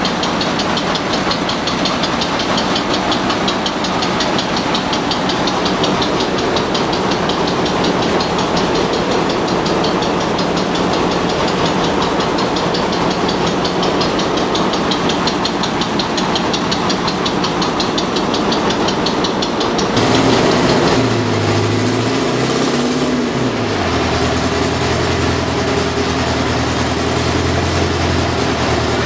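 Stationary engines running: first a steady engine with a fast, even beat, then, about 20 seconds in, an abrupt change to a deeper multi-cylinder diesel note whose pitch wavers briefly before holding steady.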